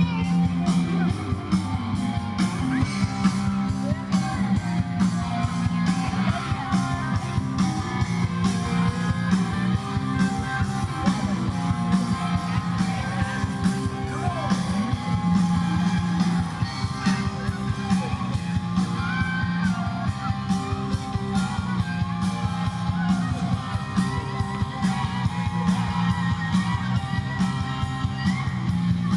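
Live rock band playing: electric guitars and drums with a singer's voice, heard loud and steady from the audience.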